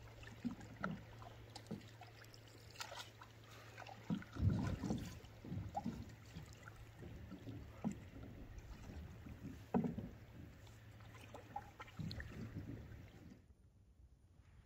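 Canoe paddling: a wooden paddle dipping and pulling through the water in irregular strokes, with splashes and occasional knocks, over a steady low rumble. The sound drops away sharply near the end.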